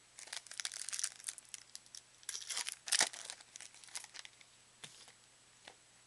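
Crinkling and rustling of a trading-card pack wrapper and cards being handled and flipped through: a dense run of crackles for about four seconds, loudest about three seconds in, then a couple of soft clicks.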